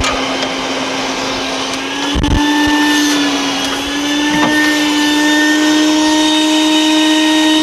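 Shop vacuum running steadily, its hose sucking debris out of a car door cavity; the motor hum rises a little in pitch about three seconds in. A dull bump about two seconds in.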